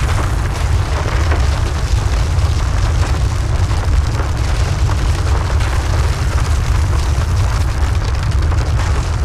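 Continuous deep rumbling, like a ground tremor or a long explosion, steady throughout with a noisy hiss above it.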